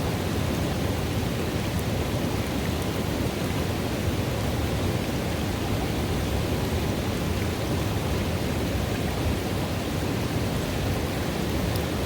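River water running into a pool: a steady, even rush, a deep rumble under a lighter hiss.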